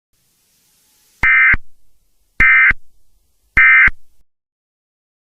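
Emergency Alert System end-of-message (EOM) signal: three short identical bursts of SAME digital data tones about a second apart, closing the alert.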